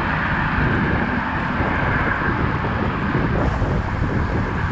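Steady rush of freeway traffic with wind rumbling on a bicycle-mounted microphone.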